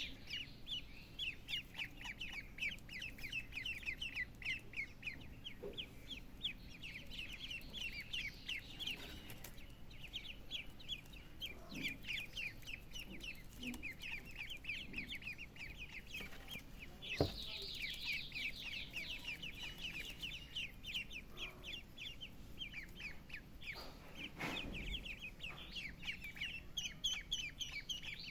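A brood of young poultry chicks peeping continuously, many overlapping short high chirps. One sharp knock about two-thirds of the way through.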